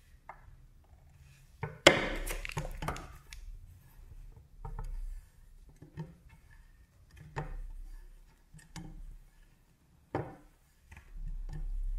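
Soft handling noises and light taps of fingers pressing and straightening a polymer clay cane on a ceramic tile, with one sharp knock about two seconds in.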